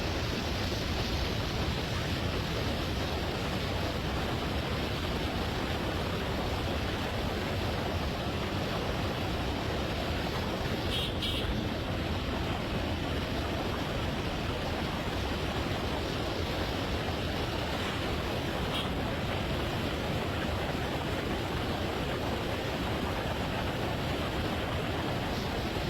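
Steady rushing noise, even throughout, with a couple of faint ticks about halfway through.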